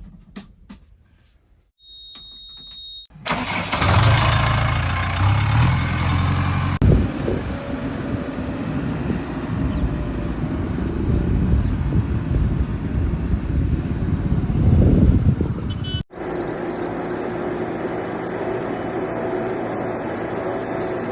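A short high electronic beep, then a heavy diesel engine starts about three seconds in and runs. After an abrupt break near the end, a diesel engine runs steadily.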